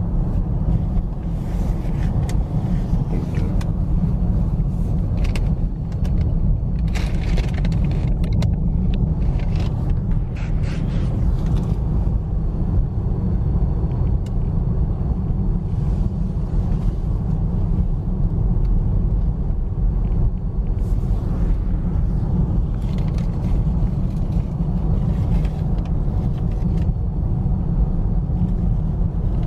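Steady low rumble of a moving vehicle, with scattered light clicks and squeaks over it.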